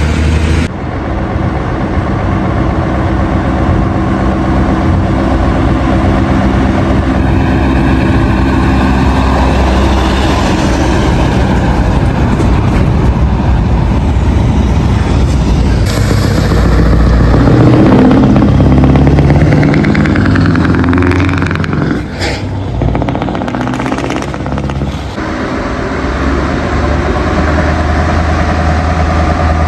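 Scania trucks' diesel engines running as the rigs drive off and turn, heard across several quick cuts. The engine note rises and falls, and is loudest a little past halfway.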